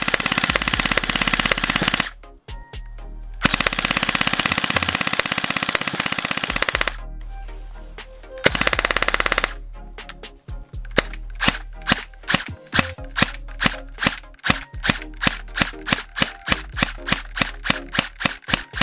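Tokyo Marui electric airsoft pistol firing into a chronograph: three full-auto bursts, of about two seconds, three and a half seconds and one second, with short gaps between. From about ten seconds in it fires rapid single shots, about four a second.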